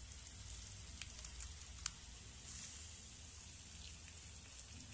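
Onion and spice mixture sizzling in a frying pan, with scattered small crackles and pops, over a low steady hum.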